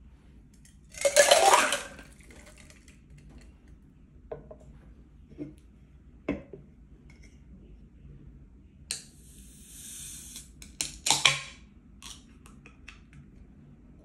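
A drinking glass clatters as it is handled, with a few light knocks on the table. Then an aluminium beer can is opened slowly: a soft hiss of escaping gas as the tab is eased up, followed by a louder sharp snap and hiss as the tab is pushed fully open.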